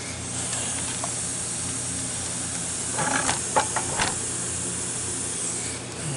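Air-powered sharpening grinder running with a steady hiss of air while it grinds the teeth of a band sawmill blade, with a few short clicks about three to four seconds in.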